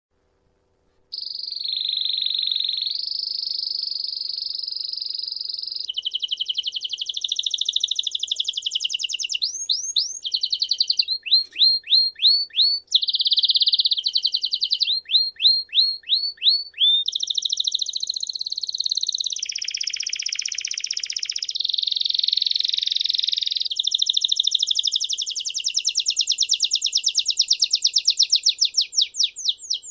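Songbird singing, starting about a second in: a long unbroken song of fast high trills and runs of quick upward-sweeping notes, switching to a new phrase every few seconds.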